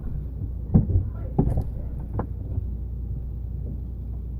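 Steady low refrigerator hum heard from inside the closed fridge, with a few dull, muffled knocks in the first couple of seconds.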